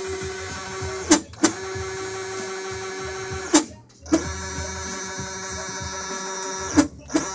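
NEMA 34 stepper motors (Longs Motor, 1200 oz-in) running at a steady step rate, giving a loud steady musical whine. They stop and restart three times, each with a quick swoop in pitch as they slow down and speed back up.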